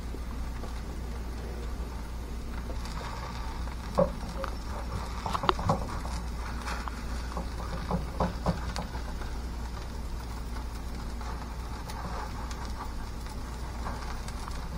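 Shredded-potato pancake batter frying quietly in a nonstick pan, the batter still runny, with a few short taps and scrapes of a silicone spatula pressing and shaping it about 4, 5 and 8 seconds in.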